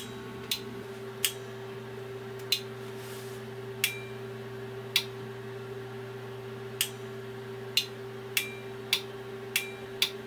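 Plug-in ice-cube relays clicking on and off about a dozen times at irregular intervals, each a sharp click with a short metallic ring, as the CNC controller's relay outputs are switched. A steady electrical hum runs underneath.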